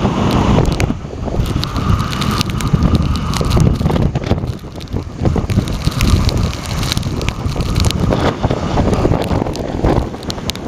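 Strong typhoon wind buffeting the microphone in a continuous low rumble, over the surge of high seas breaking against the harbour quay and reef, with scattered sharp crackles through it.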